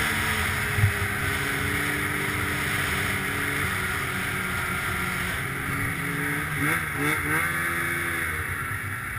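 Arctic Cat snowmobile engine running under way, holding a steady pitch and then rising and falling a few times about two-thirds of the way through.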